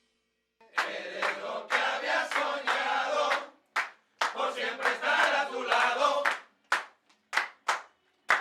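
A crowd cheering and shouting just after a salsa song ends, in two long waves, then breaking into short separate bursts of shouts and claps.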